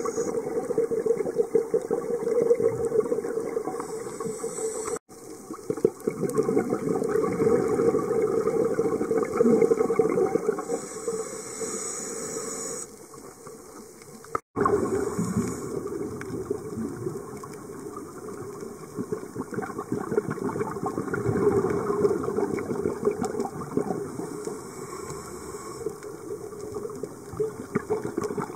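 Underwater sound heard through a camera housing: continuous muffled bubbling and crackling, with a few short bursts of hiss. It cuts out briefly twice.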